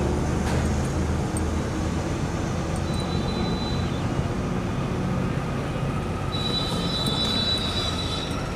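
Steady low mechanical rumble of passing vehicles, with a thin high whine that comes in briefly about three seconds in and again for about two seconds near the end.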